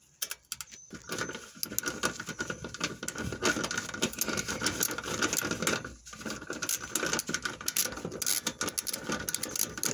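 Socket ratchet wrench clicking rapidly as a 10 mm bolt is backed out, with a short pause about six seconds in.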